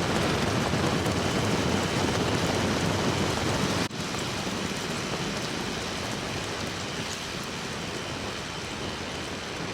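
Wind rushing over the microphone and tyre noise from an Azub Ti-fly 20 recumbent trike coasting downhill at about 40 km/h: a steady noise. It breaks off for an instant about four seconds in and carries on a little quieter.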